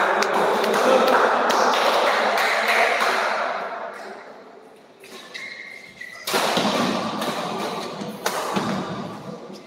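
Doubles badminton rally: rackets hitting the shuttlecock in a string of sharp cracks, with thuds of the players' footwork on the court and a swell of crowd noise in the hall.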